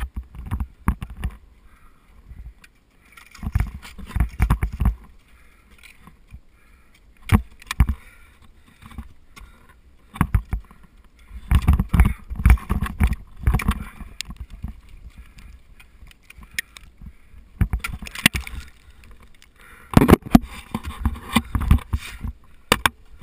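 Ice tool picks and crampons striking and biting into waterfall ice in sharp, irregular blows that come in groups of several, with low rumbling on the microphone between them.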